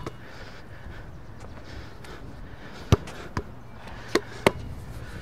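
A basketball bouncing on a hard outdoor court: four short, sharp thuds in the second half, with low background noise between them.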